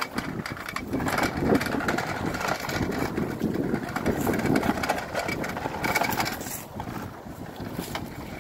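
Plastic wheels of a toy push lawnmower rolling and rattling over concrete paving stones, quieter near the end.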